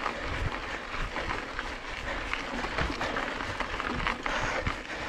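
Mountain bike rolling along a dry dirt trail: a steady rush of tyre and riding noise, with frequent small clicks and rattles from the bike over the bumps.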